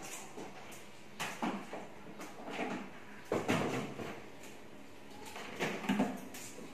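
Kitchen handling noises: a few separate knocks and clatters of utensils and containers being moved about on a tiled counter, spaced a second or two apart.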